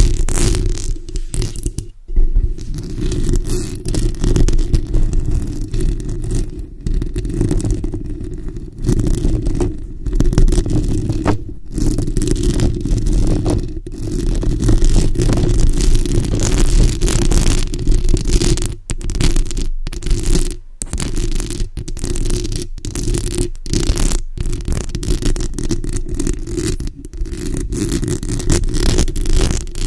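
Long acrylic nails scratching and rubbing directly on a microphone's bare metal mesh grille, picked up very close as a loud, continuous scratchy rumble. It breaks off briefly several times where the fingers lift.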